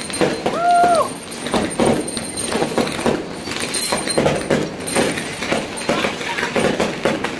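Several people's voices chattering and exclaiming together, with one drawn-out rising-and-falling call about half a second in.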